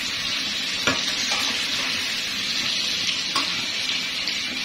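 Marinated chicken steaks sizzling steadily in butter and oil in a frying pan, their second side now cooking after being turned. Two light clicks come through the sizzle, about a second in and again a couple of seconds later.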